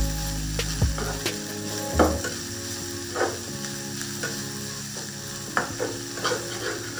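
Sliced onions, ginger and spices sizzling in oil in a frying pan while a metal spatula stirs them, scraping and tapping against the pan at irregular moments; the loudest tap comes about two seconds in.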